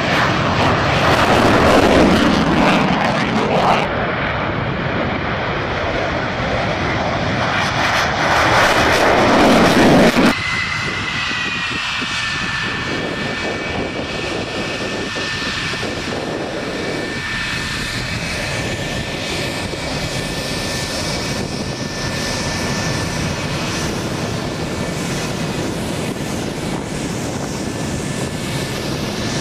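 Twin-engine F-15E Strike Eagle fighter jet taking off at full power, a loud rushing jet roar that swells and falls in pitch as it passes. About ten seconds in it cuts abruptly to the steadier, quieter run of an F-4 Phantom II's twin J79 turbojets at taxi power, with a high, nearly level whine.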